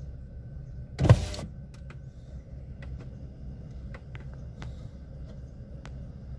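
Steady low hum of a car heard from inside the cabin. One loud thump comes about a second in, followed by a few light clicks.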